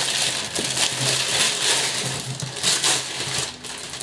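Wrapping paper being torn off a gift box and crumpled as a present is unwrapped, a dense rustle with small crackles that eases off near the end.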